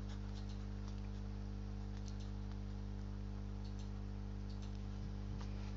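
A steady low electrical hum, with a dozen faint, irregular light clicks scattered through it.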